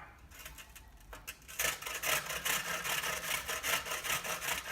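An onion being grated: quick, even rasping strokes, several a second, starting about a second and a half in.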